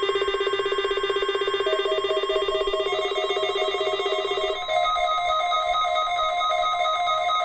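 Several NOAA weather radios sounding their electronic alert alarms together, set off by the Required Weekly Test. The alarms are overlapping rapid beeping tones at different pitches. The lowest one stops about halfway through, and another, higher beep starts just after.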